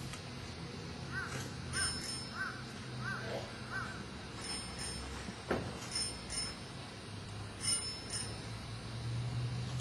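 High-pitched bells struck now and then, singly and in pairs, each strike ringing briefly.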